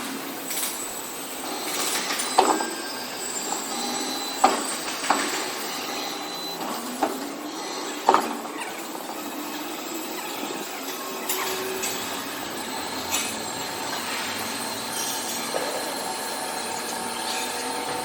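Tank 2500 floor grinder running steadily with a mechanical whine, with scattered sharp knocks, the loudest about two and a half, four and a half and eight seconds in.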